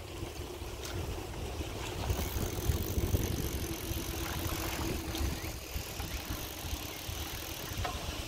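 Wind rushing over the microphone of a camera carried on a moving bicycle, a rumbling noise with a faint steady hum beneath it. The rumble grows louder about two seconds in.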